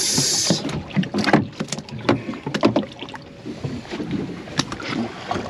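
Irregular taps and knocks on a small fishing boat, opening with a brief hiss.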